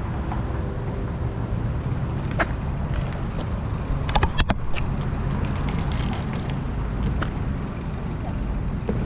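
Mountain bike rolling over pavement, heard from the moving bike: a steady low rumble of tyres and wind on the microphone. A few sharp clicks and rattles from the bike come through, most of them about four seconds in.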